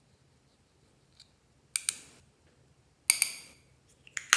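Three pairs of sharp clicks with a brief bright ring, about a second and a half apart, from a metal spatula and a plastic eyeshadow compact being handled.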